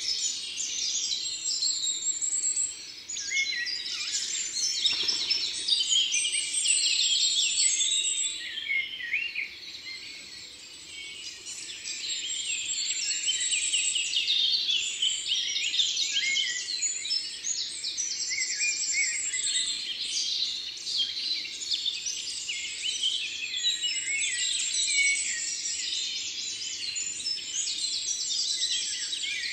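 A dense chorus of birds chirping and singing, with rapid high trills repeating throughout; it eases off briefly about ten seconds in.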